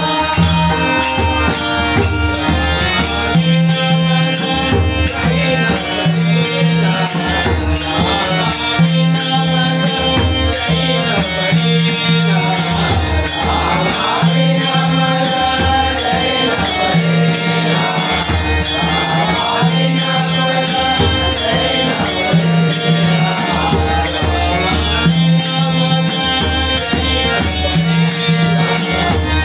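Marathi devotional bhajan: a man's voice leading the singing over held, steady instrumental notes, with beats on a pakhawaj-style barrel drum and jingling small percussion.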